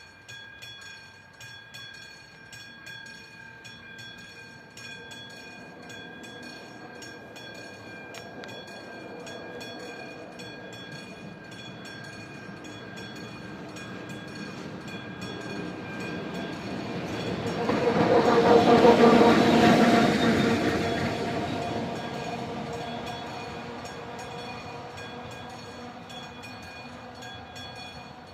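A Czech electric locomotive passing over a level crossing, building slowly to a loud peak about two-thirds of the way through and then fading away. The crossing's electronic warning bell rings throughout in a steady, even rhythm.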